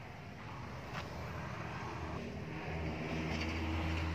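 An engine's steady low hum, growing louder over the last couple of seconds.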